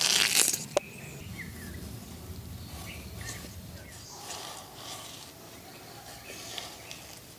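Cucumber seeds and pulp scraped out with the curved steel blade of a foot-held cutter: a loud wet scrape in the first moment, ending in a click just under a second in. After it, faint bird and insect chirps.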